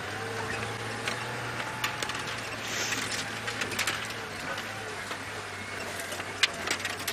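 Safari game-drive vehicle's engine running low and steady, with irregular sharp clicks and rattles over it.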